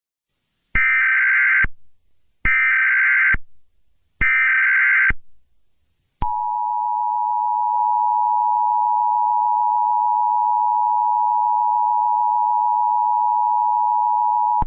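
Emergency Alert System SAME header: three short bursts of buzzy digital data tones, each just under a second long, about a second apart. About six seconds in, the EAS two-tone attention signal starts, a steady harsh dual tone that holds.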